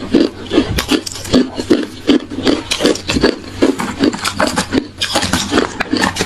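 Hard ice being bitten and chewed close to the microphone: rapid, loud crunches, about three a second.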